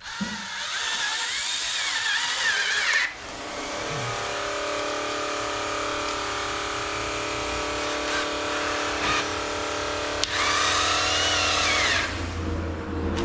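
Power drill driving screws in three runs: a wavering whine for the first three seconds, a steadier hum from about four seconds in, and another wavering whine near the end.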